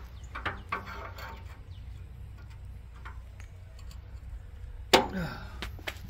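A log being shifted by hand on the steel bed of a Vallée Big Red portable band sawmill: a few light knocks, then one sharp, loud clunk about five seconds in, over a steady low rumble.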